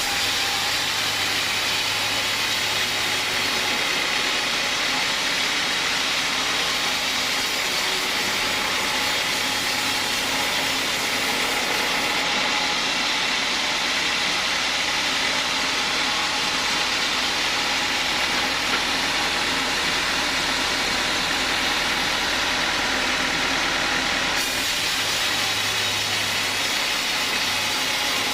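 Homemade sawmill saw running steadily, a continuous loud hiss over a low hum. The very top of the hiss drops away for about twelve seconds in the middle.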